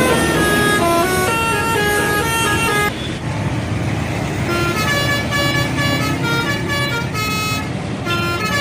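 Bus telolet horn, a multi-note air horn, playing a quick run of stepped notes over engine rumble. The melody cuts off abruptly about three seconds in, and another telolet tune starts a little before the middle and runs on.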